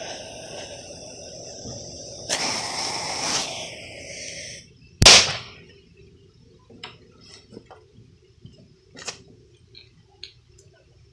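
A firework's fuse hissing, flaring louder for about a second, then cutting out, followed about five seconds in by one loud sharp bang and a scatter of small ticks and pops.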